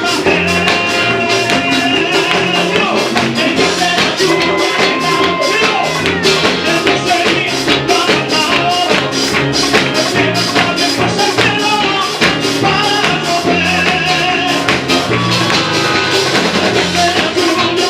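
Upbeat Latin-style worship music: a fast, steady beat with tambourine and drums, and held sung or keyboard notes over it.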